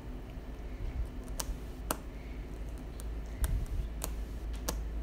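Black paint marker pen tip tapping and scratching on a painted board as lines are drawn: a handful of sharp, irregular clicks over a low steady hum.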